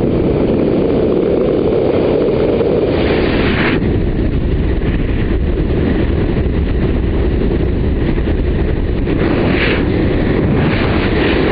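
Loud, steady rush of air buffeting a GoPro's microphone during a wingsuit BASE jump's freefall flight, with brief hissier surges about three seconds in and again near the end.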